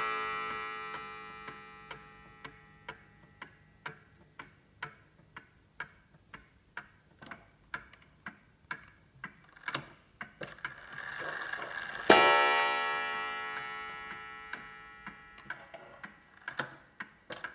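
Restored antique Ansonia gingerbread kitchen mantel clock ticking evenly about twice a second, with one loud ringing strike about twelve seconds in that slowly fades away.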